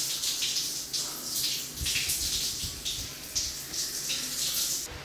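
Shower spray running over a person in a tiled shower, the splashing rising and falling as he moves under the water. It cuts off suddenly near the end.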